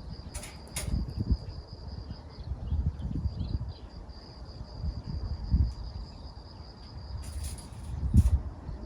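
Insects trilling steadily at a high pitch, over low knocks and handling thumps, with a few sharp clicks near the start and again near the end.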